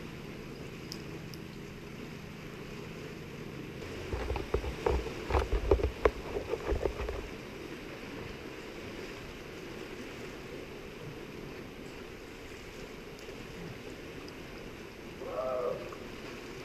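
Steady wash of sea surf and wind below a granite sea cliff. About four seconds in, a few seconds of close knocking and low rumbling on the microphone, and near the end a brief distant call.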